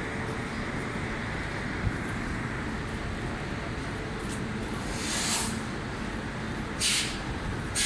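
Railway station platform ambience: a steady rumble, with short hissing bursts about five and seven seconds in.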